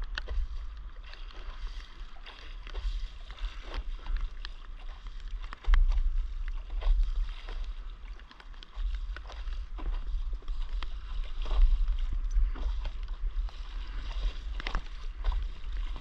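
Wind buffeting the microphone in gusts, with small waves splashing and slapping against a windsurf board's hull as it moves through choppy water. The wind rumble grows stronger about six seconds in.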